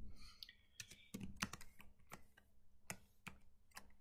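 Typing on a computer keyboard: about a dozen faint, separate keystrokes at an uneven pace.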